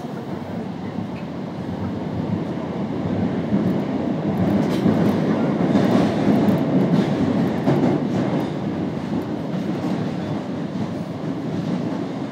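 Inside an Osaka Midosuji Line subway car under way: the steady low rumble of wheels and traction motors, with a few light clacks. It swells to its loudest around the middle and eases off toward the end.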